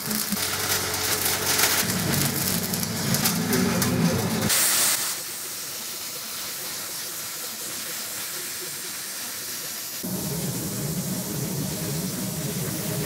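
Semi-automatic MIG welder crackling and spitting as it lays a bead on sheet steel, over a low hum. About four and a half seconds in this gives way to the steady air hiss of a plasma cutter (AuroraPRO Airhold 40) cutting steel plate, and a low hum joins the hiss near the end.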